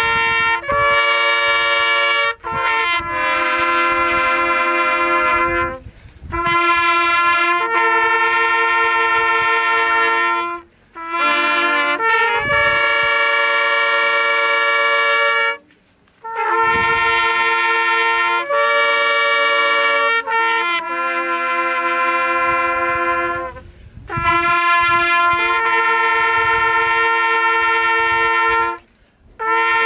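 Brass instruments playing slow, held chords in phrases a few seconds long, with brief breaks between phrases.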